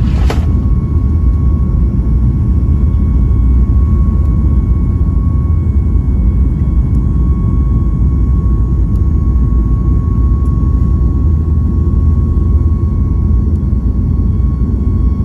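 Steady cabin noise of a Boeing 737 MAX 8 with its CFM LEAP-1B engines running: a loud, even low rumble with a thin steady whine over it. A short click sounds just after the start.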